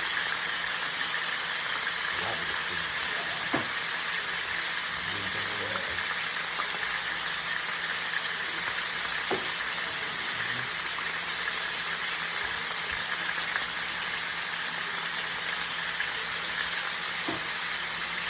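Filet mignon steaks, some wrapped in bacon, sizzling steadily as they sear in a hot pan, with a few light knocks.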